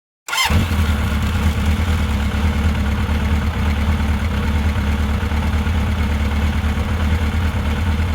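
2006 Suzuki SV650's V-twin engine running at a steady idle, coming in abruptly about a third of a second in. It runs on the newly fitted replacement fuel pump after the old pump failed.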